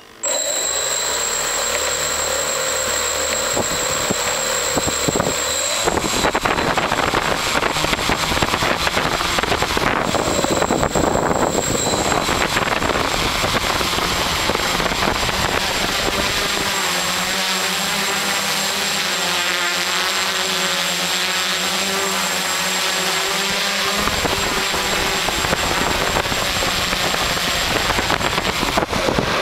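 Quadcopter's four electric motors and propellers running close to the camera, starting abruptly and then a loud steady whir. A thin high whine sits over it for the first dozen seconds, and a lower humming tone comes and goes around the middle.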